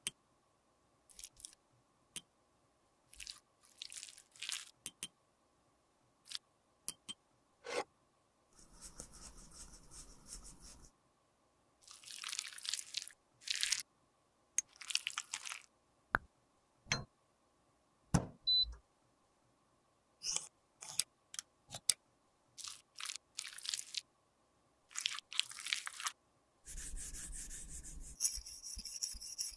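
Close-miked handling sounds of lipstick repair: small sharp ticks and taps of metal tweezers and glassware, a small glass dish and beaker, between several short stretches of rubbing. Near the end, a tissue is rubbed over a metallic lipstick tube.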